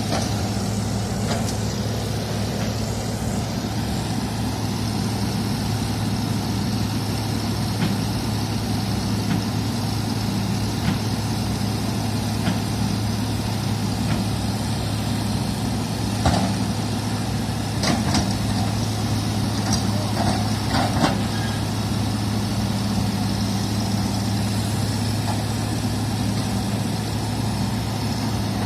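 Diesel engine of heavy construction machinery running steadily at a constant speed, with a few short sharp knocks past the middle.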